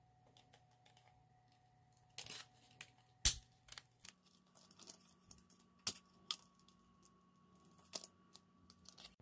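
Clear plastic makeup packaging and cap handled close up: scattered sharp plastic clicks and taps with a short scratchy rustle. The loudest click comes about three seconds in.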